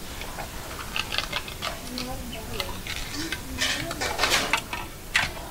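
A paintbrush dabbing and scratching on painted fabric: short, irregular scratchy strokes, busiest about four seconds in. Faint voices murmur underneath.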